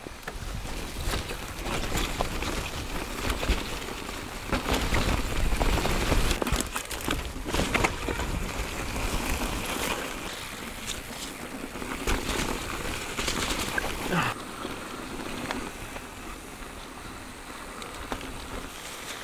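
Mountain bike rolling over a rough trail: tyre noise over gravel and rock with frequent short rattles and knocks from the bike, over a low wind rumble. It eases off and gets quieter about fourteen seconds in.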